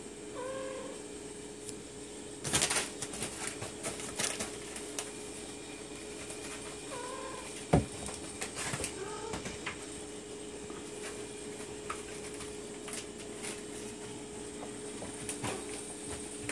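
Hairless cats mewing: a few short high mews, one about half a second in and a couple more about two-thirds of the way through. Rustling and clattering from the cats' movement comes in between, with one sharp knock just before the later mews, over a steady background hum.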